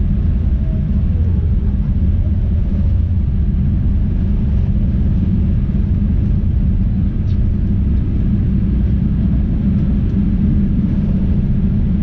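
Steady low rumble inside the cabin of a Boeing 787-8 airliner, from its engines and airflow.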